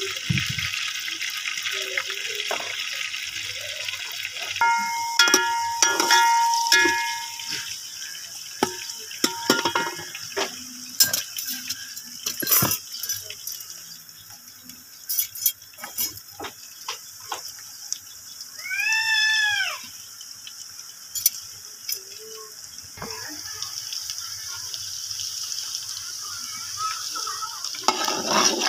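Sliced onions frying in oil in an aluminium pot, a steady hiss of sizzling, with clinks and scrapes of a metal slotted ladle against the pot. About five seconds in a steady whistle-like tone runs for several seconds, and about nineteen seconds in a single short call rises and falls in pitch.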